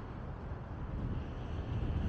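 Steady low rumble of a car driving along a city road: tyre, road and wind noise.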